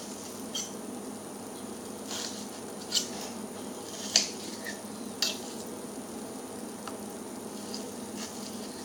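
A knife slicing partly frozen chicken on a cutting board, with about seven scattered sharp clicks of the blade against the board over a steady low hiss.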